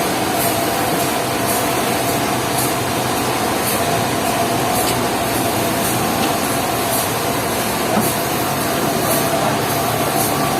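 Sawmill machinery running steadily: an even mechanical noise with a constant hum, and a faint high tick repeating about once a second.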